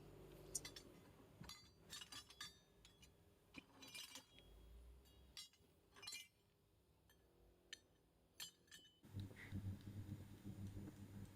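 Scattered light clinks and clicks of small metal parts being handled, some close together and some a second or more apart. About nine seconds in, a low pulsing hum starts.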